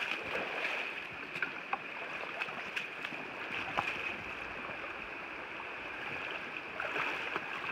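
Shallow creek water running steadily over a rocky bed, with scattered short splashes and clicks as someone wades and works a dip net in the water.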